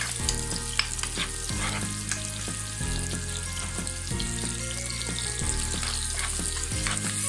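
Chopped onions sizzling and crackling in hot oil in a wok while a spatula stirs them.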